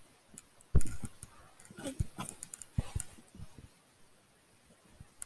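Dull thumps and rustling from a child moving about with a handheld camera, the loudest thump about a second in and smaller ones around two and three seconds. A brief faint voice shows up around two seconds in.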